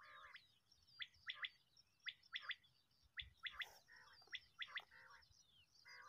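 Common quail calling: a sharp three-note phrase, the species' 'wet-my-lips' song, repeated about four times roughly a second apart.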